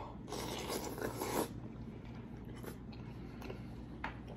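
A large raw oyster slurped off its half shell: about a second of slurping near the start, then soft chewing.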